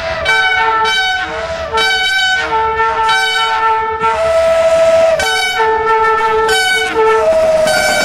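Horns of a CFR class 65 GM diesel locomotive sounded in a rapid run of short blasts of changing pitch, played like a tune, with one longer blast near the middle of the run.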